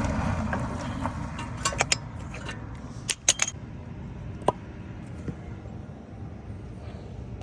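Sharp metallic clinks of tools and parts being handled during brake work: a few quick clinks together, a second group about a second later, then a single one. A low rumble fades out under them in the first second or two.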